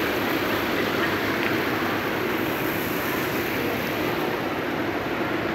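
Steady background din of a large indoor shopping mall: an even noise with no distinct events.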